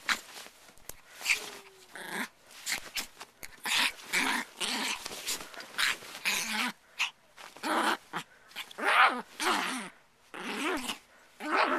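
A Chihuahua growling and snarling in many short, repeated bursts as it goes after a hand.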